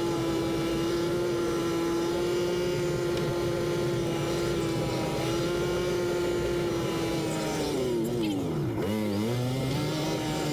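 Yamaha Wolverine side-by-side's engine running steadily under way, its pitch dropping sharply about eight seconds in as the machine slows down, then holding at a lower pitch.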